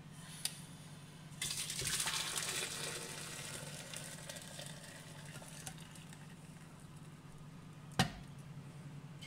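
Hot mint water poured from a pot through a mesh strainer into a plastic blender jug: a splashing pour that starts about a second and a half in and tails off over the next few seconds. A sharp knock near the end.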